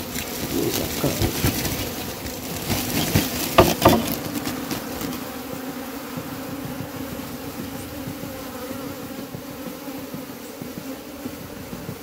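Swarm of honey bees buzzing steadily as they are shaken out of a cloth bag into a wooden hive box. Rustling of the bag fills the first few seconds, with two sharp knocks about four seconds in.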